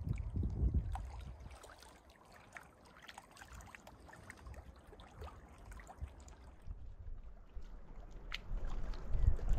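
Small waves lapping at a lakeshore with light splashes and trickles. Wind buffets the microphone in low rumbles at the start and again near the end.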